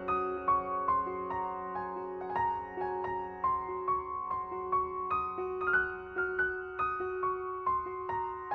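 Background music: soft piano or electric piano playing a gentle melody of evenly paced notes over sustained chords.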